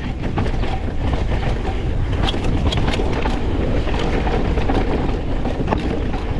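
Wind buffeting the microphone over the steady rumble and rattle of a 2025 Pivot Switchblade full-suspension mountain bike descending rough, rooty trail, with scattered sharp clacks as it hits bumps.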